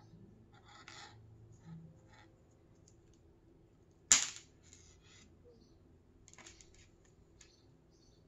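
Braided earphone cable being untangled by hand: soft rustling and rubbing of the cable, with one sharp click about four seconds in.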